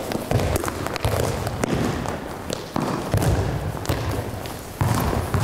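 Balls being kicked and bouncing on a hard sports-hall floor, with scattered thuds and footsteps at irregular moments over the low hum of the hall.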